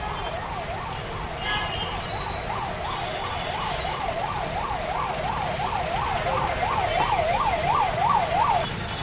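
Emergency vehicle siren on a fast yelp, its pitch sweeping up and down about three times a second, growing louder and then cutting off shortly before the end, over low traffic rumble.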